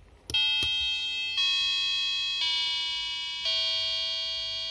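Battery-powered electronic wall-clock chime module playing a slow tune of bell-like notes through its small speaker after its button is pressed. Four notes come about a second apart, each struck and then fading, with a click at the start.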